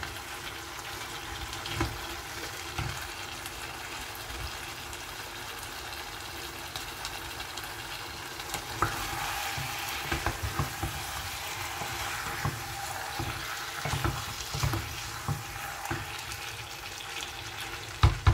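Potatoes and chicken sizzling in a pot with little water on a gas burner, stirred with a wooden spoon. A steady frying hiss runs throughout, with scattered knocks of the spoon against the pot, more of them in the second half and a quick cluster near the end.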